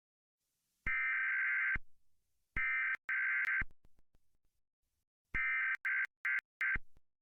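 Emergency Alert System SAME header data bursts: a digital data tone sounded in separate bursts, one about a second long, then two shorter ones back to back, then four short chopped bursts near the end.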